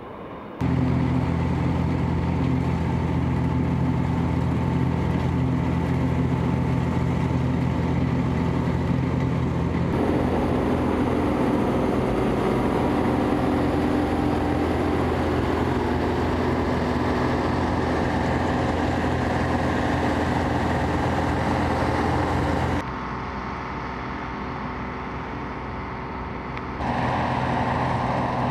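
Deutz-Fahr M 2385 combine harvester running steadily while harvesting barley, its diesel engine and threshing machinery making a constant drone. The sound changes abruptly about a second in and again about ten seconds in, and drops in level for a few seconds near the end.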